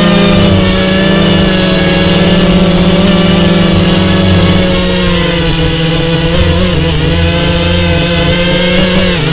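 Parrot Bebop 2 quadcopter's electric motors and propellers buzzing loudly in flight, a steady drone with a high whine above it. The pitch wavers and briefly dips about seven seconds in and again near the end as the throttle changes.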